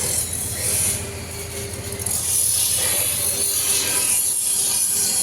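Workshop machinery running: a steady high hiss with a fast, fine rattle underneath, dipping briefly about a third of the way in.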